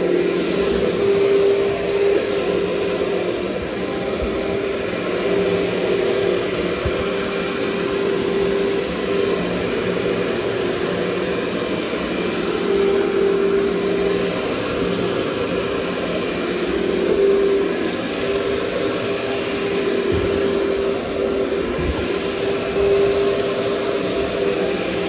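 Workhorse canister vacuum cleaner, an Amway-built machine, running steadily while vacuuming carpet. Its motor holds a constant hum over the rush of air through the hose.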